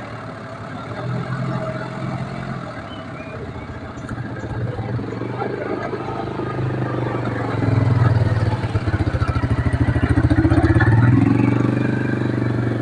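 Engine of a heavy log-handling machine running steadily, then working harder and getting louder from about eight seconds in.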